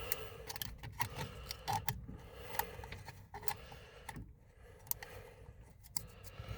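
Scattered, irregular small clicks and taps over a faint steady hum.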